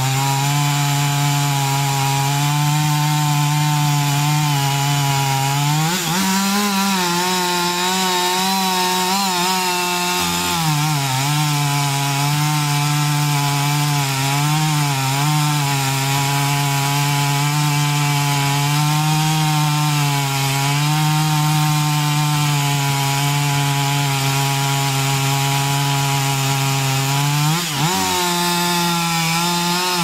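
Two-stroke chainsaw with a long bar running at full throttle while cutting through the trunk of a large tree, its engine note holding steady under load. The pitch rises briefly about six seconds in, wavers a few times after that, and dips briefly near the end.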